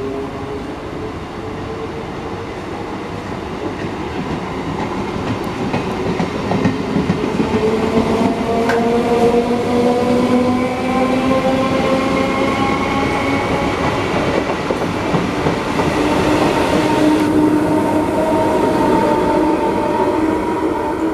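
Electric multiple-unit suburban train passing close by on the near track: a steady rumble of wheels on rail, with the motors' whines slowly rising in pitch.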